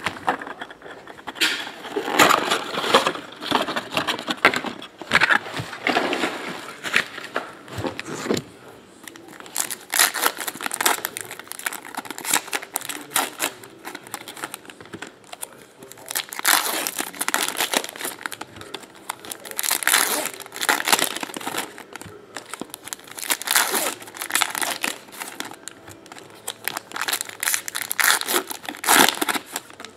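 Foil trading-card packs of 2017 Upper Deck Goodwin Champions being torn open by hand, with the wrappers crinkling and rustling in irregular bursts.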